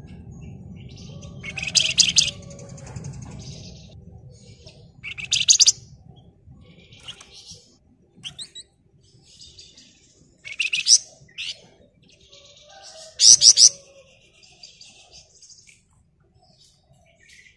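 A flamboyan songbird giving short, rapid chattering bursts of high calls, about six of them spaced a few seconds apart, the loudest about thirteen seconds in. A faint low hum sits under the first few seconds.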